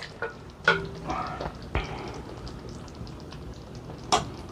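Metal utensil clinking against a pan a few times while sauced gnocchi are spooned out for plating. Each clink rings briefly.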